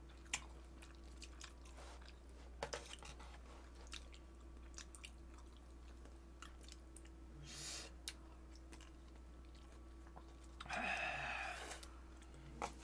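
Quiet chewing and mouth sounds of people eating, with scattered light clicks of chopsticks and spoons against dishes. A short muffled noise rises briefly near the end.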